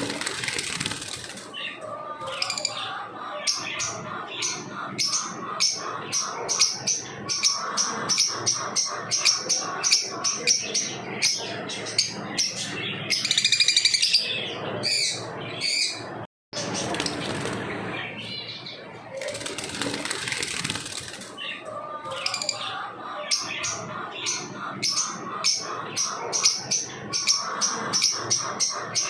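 Lovebirds chattering in a dense run of rapid, shrill chirps, with several brief bursts of wing-flapping noise. The sound cuts out for a moment about halfway through.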